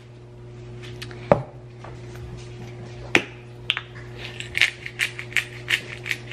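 A hand-twisted spice grinder grinding salt and pepper onto tomato slices: a run of quick, short clicks from about four seconds in, after two sharp knocks on the stone countertop. A steady low hum runs underneath.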